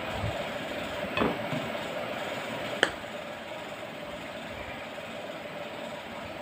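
Steady machine-like hum throughout, with a soft bump a little after a second and one sharp click near three seconds as a plastic squeeze bottle is set down on the counter.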